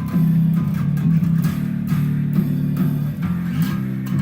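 Electric bass guitar playing the closing bars of a song along with the full recorded track: long held low notes, with a few slides between them.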